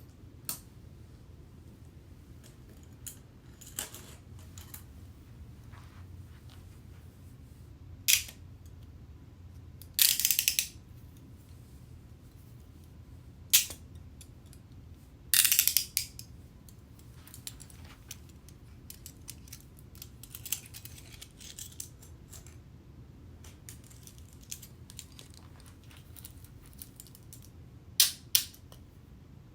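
Metal handcuffs being handled: scattered sharp clicks with long pauses between, two short rattling, ratchet-like bursts about ten and fifteen seconds in, and a quick pair of clicks near the end.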